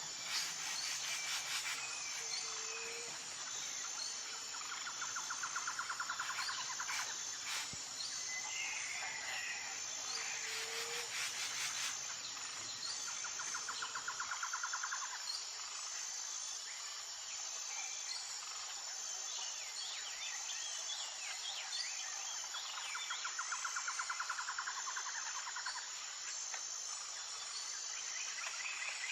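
Wild birds chirping and calling over a steady, high, pulsing insect drone. A rapid trill comes three times, each lasting a couple of seconds, and two short low whistles sound in the first half.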